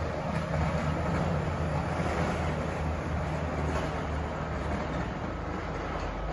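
Diesel engine of a CAT 930K wheel loader running steadily with a low, even drone while it pushes back snow banks. It eases slightly near the end.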